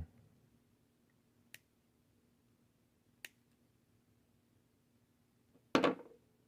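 Small handling clicks from working on the eyeglass frame and line: two faint ticks, then a louder, sharper click near the end.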